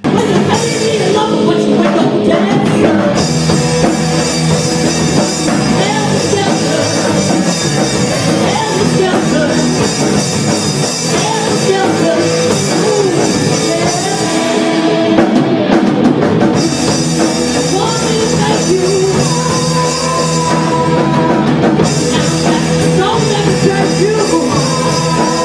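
Rock band playing loudly: drum kit, guitar and a singing voice. It cuts off suddenly at the end.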